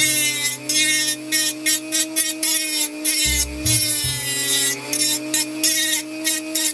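Handheld rotary tool with a sanding drum running at a steady high whine while it sands away the plastic inside a model car body. A rasping grind comes and goes several times a second as the drum bites into the plastic and lets off.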